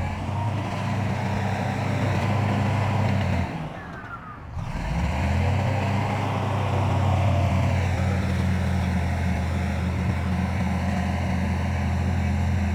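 Diesel engine of heavy earthmoving machinery running steadily. It drops away briefly about four seconds in, then comes back.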